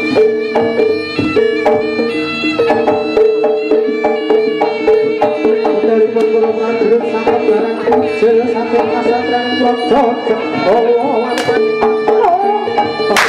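Javanese jaranan accompaniment: drums and percussion playing a dense beat under a pitched melody over a steady drone. A sharp whip crack sounds about eleven seconds in and another at the very end.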